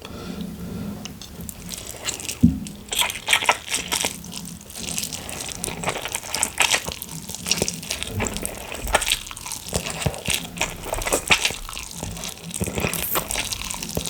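A person eating instant noodles up close, slurping and chewing with irregular wet smacks and clicks. There is a sharp knock about two and a half seconds in.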